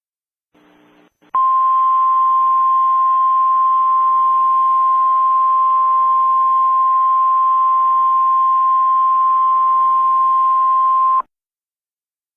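Emergency alert attention tone: a single steady tone of about 1050 Hz held for about ten seconds over a faint hiss, starting about a second and a half in and cutting off suddenly.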